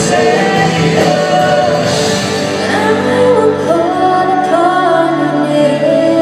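Live worship band playing a slow song, with a singer holding long, gliding melody lines over sustained chords.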